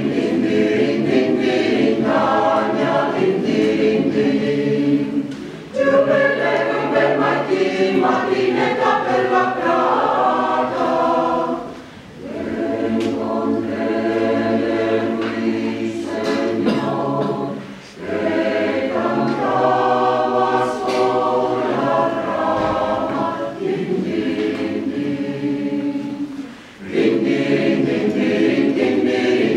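Mixed choir of men's and women's voices singing in harmony, in phrases of about six seconds with short breaks between them.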